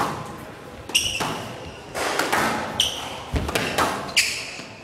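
Squash rally: the ball is struck by rackets and smacks off the walls about six times, and court shoes give three short, high squeaks on the floor.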